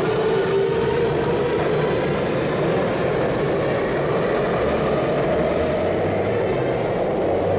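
Electric commuter train running on the rails: a steady, loud rumble with a held tone running through it.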